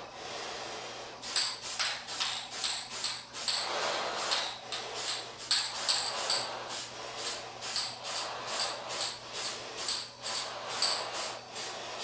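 Quick rhythmic rattling, about three strokes a second, each with a bright ringing edge; the strokes start about a second in and keep an even pace.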